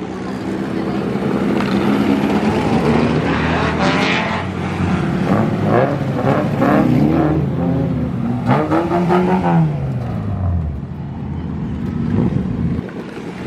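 Saloon race car engines running as the cars pull past at low speed. The revs climb, then the pitch falls away as one car goes by, about nine seconds in.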